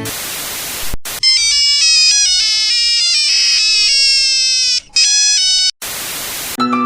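Nokia phone ringtone played as a bright, high electronic melody in stepped notes, set between bursts of hiss about a second long at the start and near the end.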